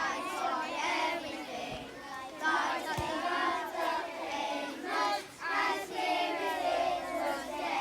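A class of primary-school children singing together in unison, a song with no clear instrumental backing.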